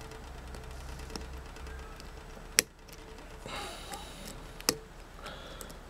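Lockpicking in a 5-pin Schlage cylinder: a pick and tension wrench working the pins, with a few sharp metallic clicks, the loudest about two and a half seconds and four and a half seconds in.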